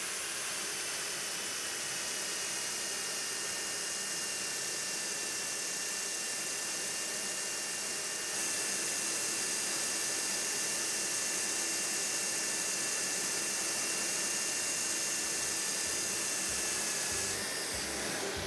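Right-angle drill spinning a sanding pad against an ash twig pot turning on the lathe: power sanding, a steady whine over a high hiss, a little louder from about eight seconds in.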